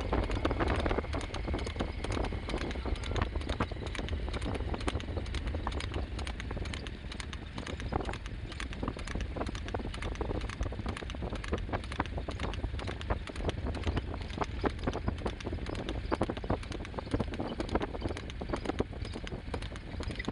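Hooves of a horse pulling a two-wheeled racing cart, clip-clopping rapidly on an asphalt road as a quick, continuous run of sharp clacks over a steady low rumble.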